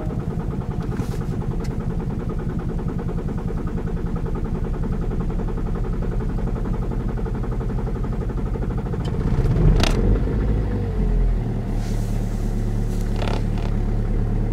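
Kia Optima 1.7 CRDi four-cylinder turbodiesel idling with a steady diesel clatter just after a cold start at about −27 °C. About ten seconds in the sound briefly gets louder, with a short falling note, then settles into a steadier, lower hum.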